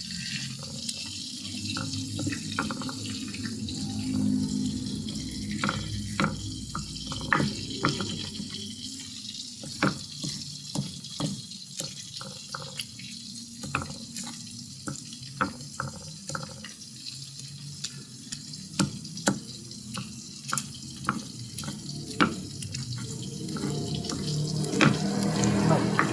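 Food frying in a pan of hot oil: a steady sizzle with frequent sharp pops and crackles.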